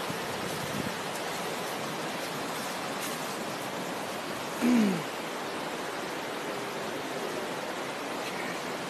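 Rushing river water over rapids, a steady wash of noise, with one short cry that falls in pitch about halfway through.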